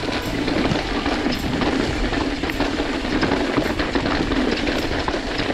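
Mountain bike rolling fast along a dirt singletrack: steady tyre noise on the dirt with a continuous rattle of small clicks and knocks from the chain and frame over bumps.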